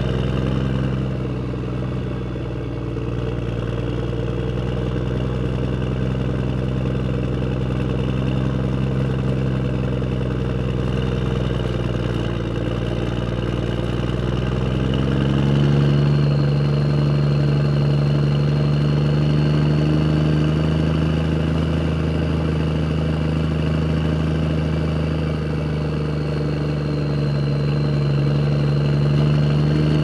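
A heavy vehicle's engine sound running steadily, dubbed over the silent toy trucks. About halfway through, the deepest rumble drops away and the engine note shifts and grows slightly louder, with a faint high whine above it.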